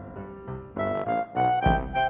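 Background music led by piano-like keyboard notes, growing louder about a second in, with a deep beat coming in near the end.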